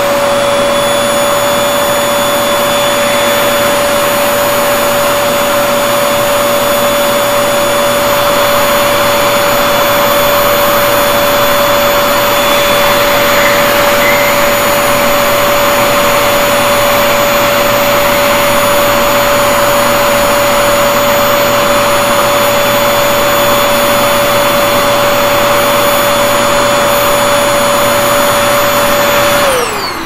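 Stick vacuum cleaner running steadily with a high motor whine over a rushing hiss, sucking up clumps of cut hair from a hard floor. Near the end the whine falls away as the motor winds down.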